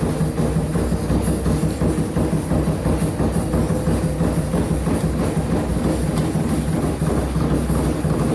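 Electrolux LF10 top-loading washing machine in its intermediate spin, with a steady motor hum and a rapid, continuous knocking and rattling as the tub spins out of balance: a single blanket is too light a load to keep it balanced.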